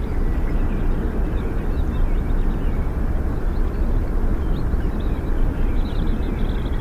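Steady low rumbling outdoor ambience, with faint short high chirps scattered through it and a small cluster of them about six seconds in.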